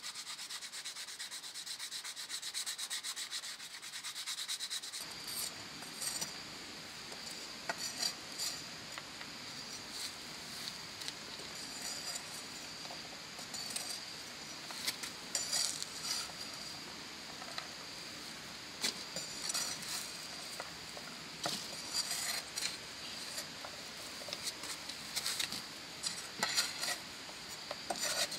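Hand rubbing steadily over wet paste letters on a painted board, then, from about five seconds in, a thin blade scraping the paste off the board's surface in short, irregular scratchy strokes with small clicks.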